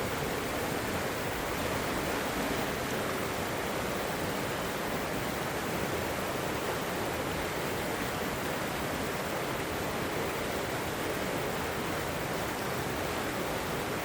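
River water flowing and rushing over rocks, a steady, even wash of sound with no breaks.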